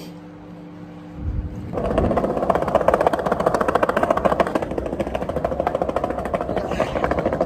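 Skateboard rolling over paving tiles: a steady rattling rumble from the hard wheels on the rough pavement, starting about a second and a half in after a moment of quiet room tone.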